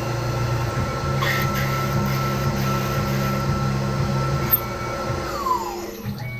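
Tormach CNC mill slotting steel at full depth: the spindle and cutter run with a steady whine over a low drone. About five seconds in, the whine glides down in pitch as the spindle slows.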